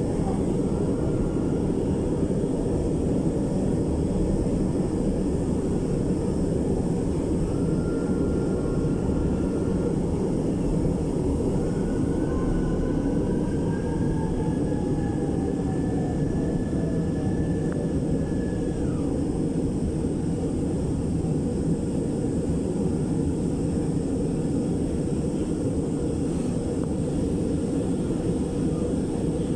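Inside a moving MRT-3 light-rail car: the steady rumble of the train running along the elevated track. Faint whines come and go in the middle, one rising slightly and one falling in pitch.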